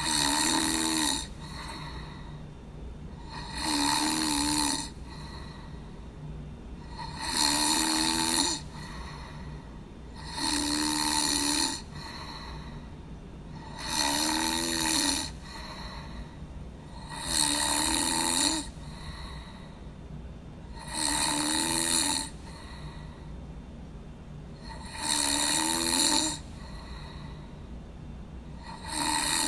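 A person snoring in a steady rhythm, one snore about every three and a half seconds, each lasting about a second.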